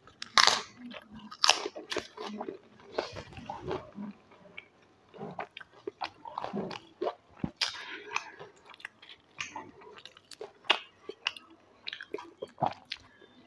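A person eating close to the microphone: irregular sharp crunches of crisp potato snacks being bitten, with chewing between the bites.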